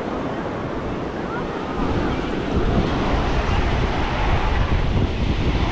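Surf breaking on an ocean beach, a steady wash of waves, with wind buffeting the microphone; the low wind rumble grows louder about two seconds in.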